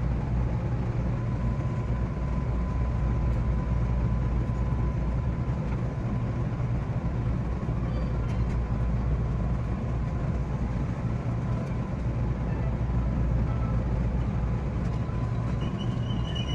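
JR West 227 series electric train running, heard from the driver's cab: a steady low rumble with a faint steady whine.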